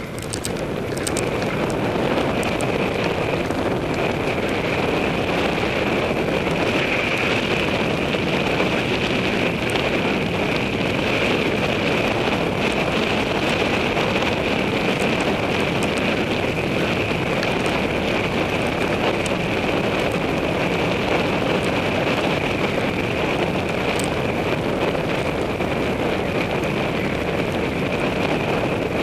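Wind rushing over the microphone of a camera on a cyclocross bike ridden fast along a dirt and leaf trail, mixed with tyre noise and a steady high whine. There are scattered small rattles over bumps, and it gets louder about a second in.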